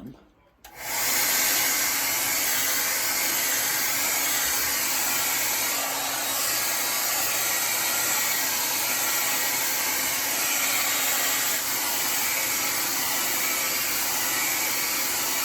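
Hair dryer switched on about a second in and blowing steadily at a constant level, an even rushing noise with a faint motor hum.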